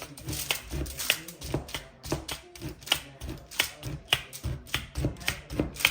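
Hand-held mechanical blade meat tenderizer pressed down into deer backstrap again and again, a sharp clack about twice a second as its blades punch through the meat.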